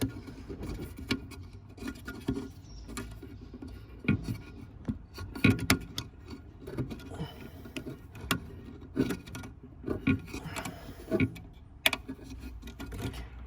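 Irregular plastic clicks, knocks and rubbing as hands work the fibre-optic connector loose from the back of a car radio head unit, the connector stuck in its socket.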